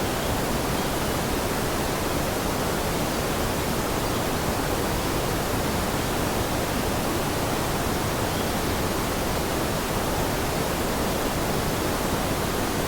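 Steady rushing water, an even hiss with no breaks, drops or changes.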